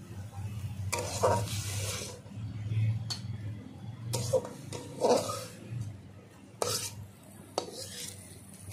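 Metal spatula scraping and clinking against a steel plate and wok as cooked greens are scooped out, in a series of separate short scrapes over a steady low hum.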